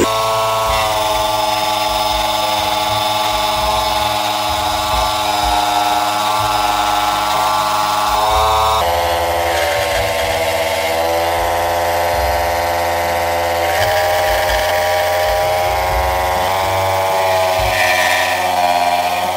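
Bosch PST 50 A jigsaw running steadily, mounted blade-up under a plywood table, cutting a wooden board. Its motor pitch dips slightly now and then as the blade takes the load of the cut.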